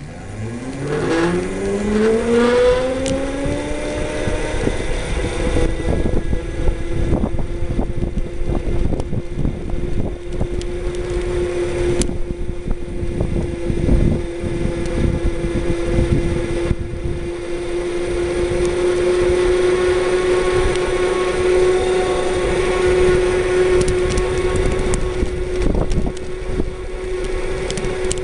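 A homemade electric kart's 24-volt 450-watt DC motor whining up in pitch as the kart pulls away from a standstill, levelling off after about four seconds into a steady whine at cruising speed. Under it runs the rumble of small tyres on asphalt, with scattered knocks.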